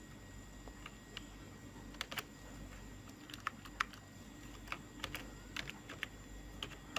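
Computer keyboard keys pressed one at a time: a dozen or more faint, unevenly spaced keystrokes as a name is typed in.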